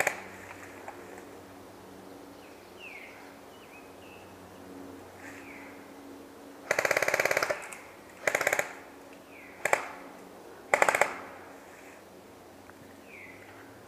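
Airsoft electric rifle firing rapid full-auto bursts: a short burst at the start, a longer burst of about a second about seven seconds in, then three more short bursts. Short falling bird chirps sound in the gaps.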